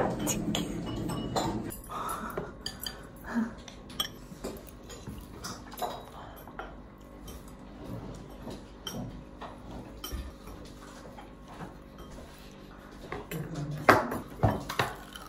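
Dishes and cutlery at a meal: scattered light clinks and taps of utensils on plates, with a few louder knocks near the end.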